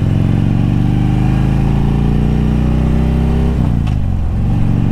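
Harley-Davidson V-twin motorcycle engine pulling away under throttle, its pitch rising steadily. About three and a half seconds in the revs drop with a short click as it shifts up a gear, then it runs on at a lower pitch.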